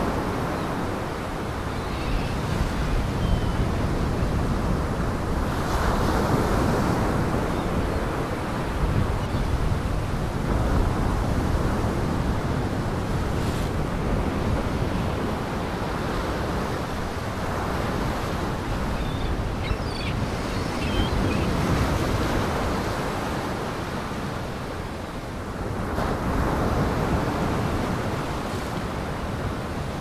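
Storm surf breaking and washing onto a rocky shoreline, surging and easing every several seconds, with wind.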